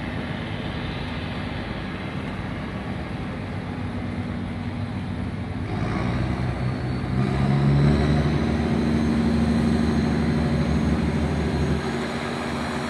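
Diesel engines of the boats working a barge under a bridge, running with a steady low drone that grows louder about seven seconds in as the stern boat pulls to hold the barge straight.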